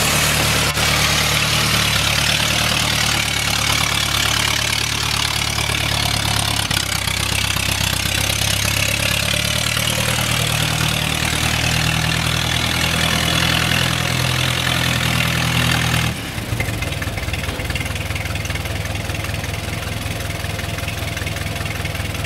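1927 Ford Model T truck's four-cylinder engine running steadily as the truck drives. About 16 seconds in the sound changes abruptly and drops in level, the engine still running.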